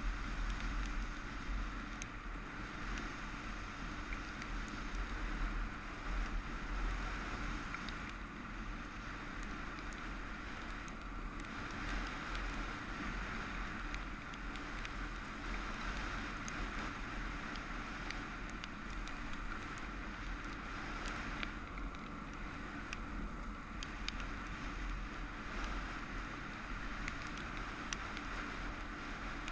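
Motorcycle cruising at steady speed on a gravel road, its engine running evenly under wind noise on the camera microphone, with a few faint sharp ticks.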